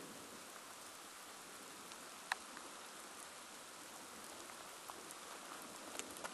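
Light rain falling as a faint, even hiss, with a few single drops ticking close by, the loudest about two seconds in.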